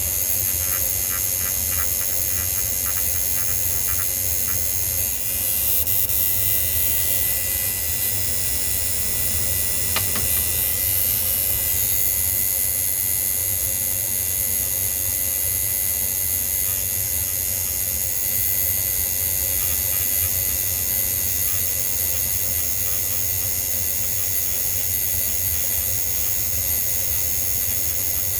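A machine running steadily: a continuous hiss with a low hum underneath and a few faint steady tones, and a brief click about ten seconds in.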